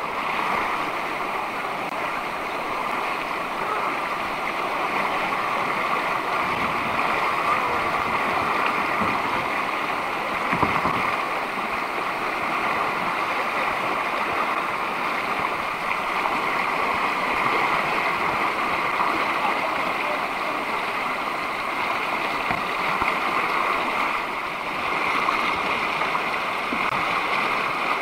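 River rapids rushing steadily, heard close to the water from a kayak running the whitewater, with one brief thump about ten seconds in.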